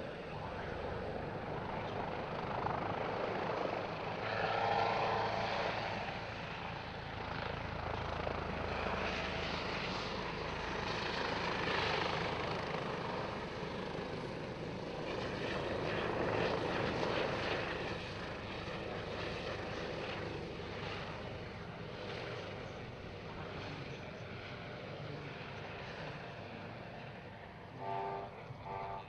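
Airbus H145M twin-turbine military helicopter flying a display, its rotor and Turbomeca Arriel 2E turbine noise swelling and fading as it manoeuvres.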